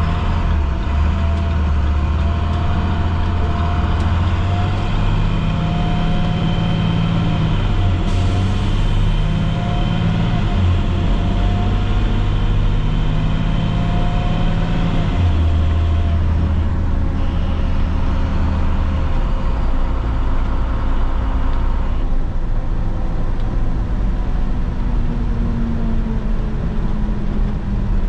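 MaxxForce DT inline-six turbodiesel of a school bus running steadily, its drone shifting in pitch several times as the revs change.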